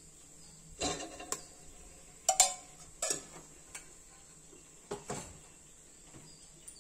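Scattered sharp clicks and small pops, a few with a brief metallic ring, from a pressure cooker where whole spices (bay leaves, cinnamon, cardamom) fry in hot oil and ghee. About eight of them come irregularly, the loudest about two and a half seconds in.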